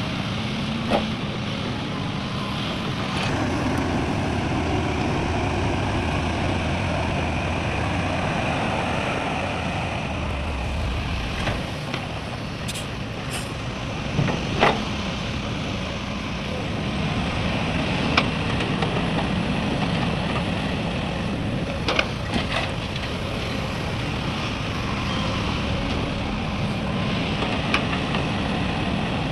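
Heavy diesel machinery running steadily at a worksite: an excavator loading a dump truck, with a few sharp metallic knocks now and then.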